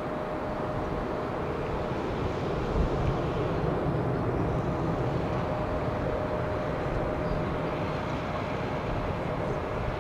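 Boeing 777-200ER's twin Pratt & Whitney PW4000-series turbofans at climb power, a steady distant jet roar with a faint steady whine, as the airliner climbs away after takeoff.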